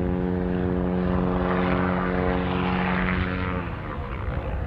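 Pitts Special aerobatic biplane's piston engine and propeller droning steadily at power. About three and a half seconds in the engine note drops away abruptly, leaving a low rumble, as the biplane goes into a tumble.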